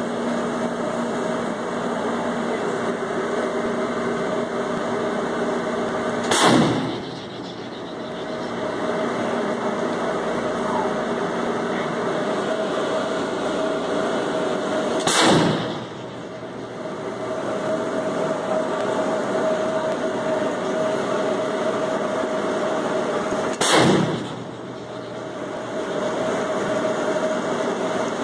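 A ship's deck gun firing single rounds: three sharp shots about eight and a half seconds apart, over a steady hum on board.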